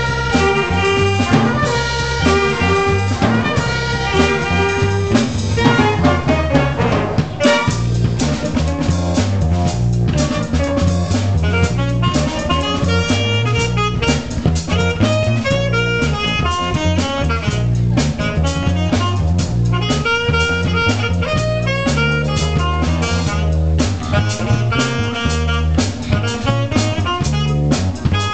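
Live jazz band playing a funk tune. Trumpets and saxophones play a riff over a drum kit for the first few seconds, then the horns drop out and the drums and rhythm section carry on.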